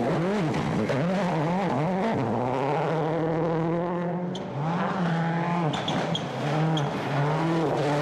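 A World Rally Car's turbocharged four-cylinder engine is revving hard, its pitch climbing and dropping quickly through gear changes and lifts. About two and a half seconds in it holds steady revs for roughly two seconds, then climbs and drops again.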